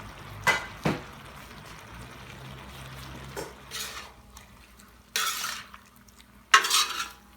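Metal cooking utensils knocking on a pan of chicken curry: two sharp knocks in the first second, then several short scraping strokes in the second half as the contents are stirred.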